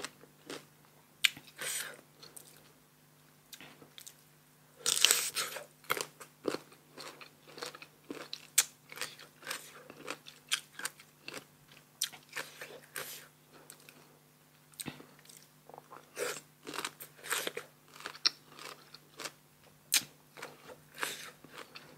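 Close-up eating sounds: crisp bites into sour green mango (mamuang bao), then chewing with many short crunches, the loudest bite about five seconds in.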